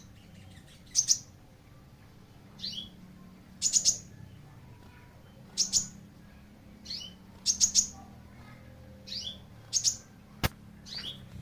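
A caged songbird chirping in short phrases, each a quick downward-sweeping note with sharp clicky notes, repeated about every second. There is one sharp click near the end.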